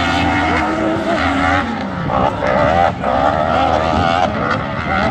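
Autocross race cars' engines revving hard on the dirt track, pitch rising and falling with gear changes and throttle lifts, more than one engine overlapping.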